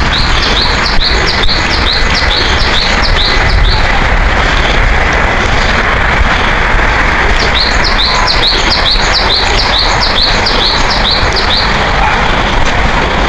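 A songbird singing two bouts of rapid, repeated down-slurred chirps, each bout about four seconds long, with a pause of a few seconds between them.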